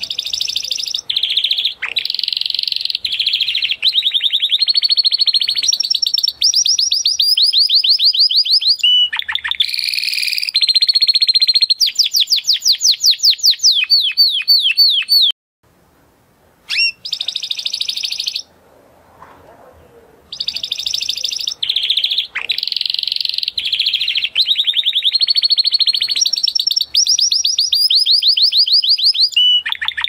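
Spanish Timbrado canary singing in long phrases of fast trills and rolls. The song breaks off twice for a second or two near the middle, with one short phrase in between, then runs on again.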